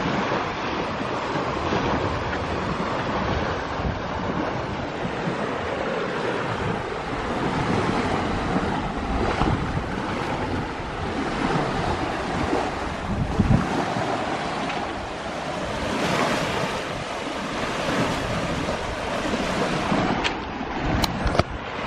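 Wind buffeting the microphone and water rushing along the hull of a sailboat under sail, a steady wash. A few sharp clicks near the end.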